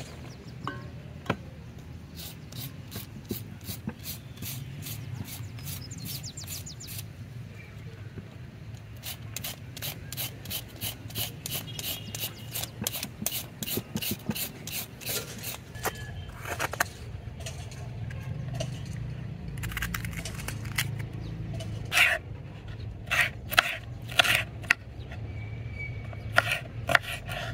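A carrot rasped up and down a handheld julienne grater over a steel bowl: a quick, even run of grating strokes, about four to five a second. Near the end a knife chops green pepper on a wooden cutting board in a few sharp knocks.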